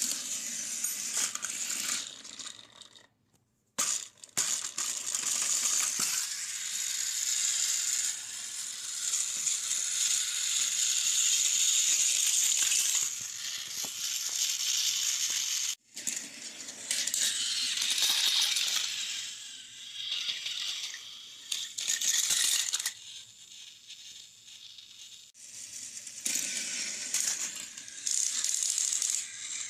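Plastic toy trains rattling and clattering against one another, with many quick clicks over a steady high hiss; it breaks off briefly twice.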